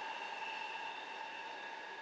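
A passing train receding: a steady rushing noise with steady high whining tones, slowly fading.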